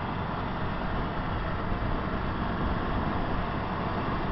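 Steady road and engine noise of a car driving slowly, heard from inside the cabin.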